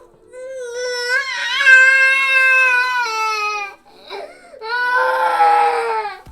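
A baby crying: one long, high wail of about three seconds, then a shorter second wail that drops in pitch as it ends.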